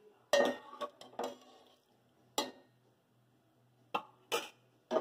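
Steel ladle and pans clanking against a pressure cooker on the stove: about seven sharp metal knocks at uneven intervals, a cluster in the first second and more near the end.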